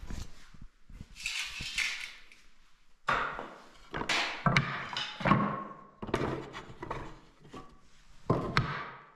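Wooden boards and offcuts of ash knocking and clattering against one another as they are picked up and sorted from a pile, with a scraping rustle about a second in. A handful of sharp wooden knocks ring briefly, the loudest between about four and five and a half seconds in and again near the end.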